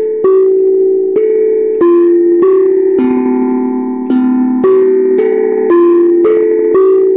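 Grandfather clock chiming the quarter-hour melody on its chime rods: a slow tune of struck, ringing notes at changing pitches, loud and one every half second to a second.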